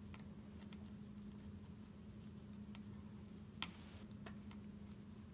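Knitting needles clicking faintly and irregularly as stitches are worked along a row, with one louder click about three and a half seconds in. A steady low hum runs underneath.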